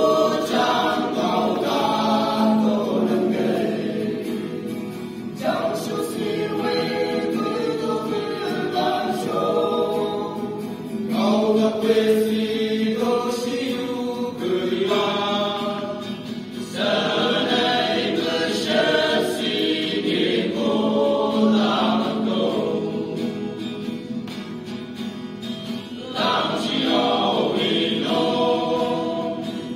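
A male band singing a Chang folk fusion song together as a choir, in long phrases of several seconds with brief breaks between them.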